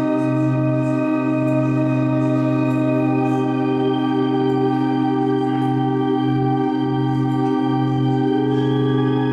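Organ drone: a held chord of many steady tones, with a low note running underneath. About three seconds in, one upper note gives way to a slightly higher one.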